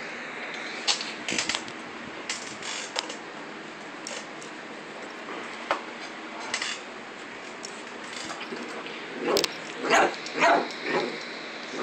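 Small dog barking at a stuffed toy dog it has been attacking, about four sharp barks in quick succession near the end, after a few scattered clicks and scuffs.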